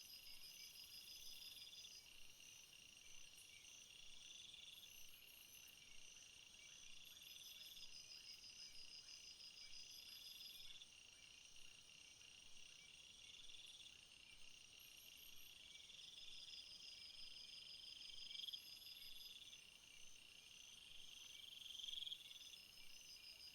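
Faint night-time jungle ambience of many insects calling together. Under a steady high pulsing trill, a buzzy call swells and stops about every two seconds, with short bursts of high chirps laid over it.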